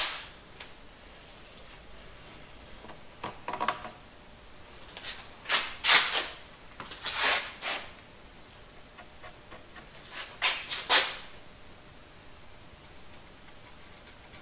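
A few short, irregular scrapes and knocks of cedar wood pieces being handled and shifted, with quiet gaps between them.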